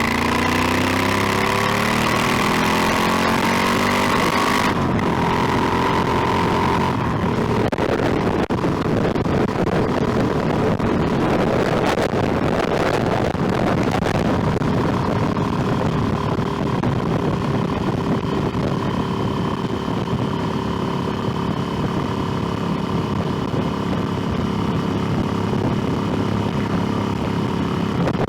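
Motorcycle engine pulling up through the revs with rising pitch for the first few seconds, then running steadily at cruising speed under a rush of wind noise on the microphone.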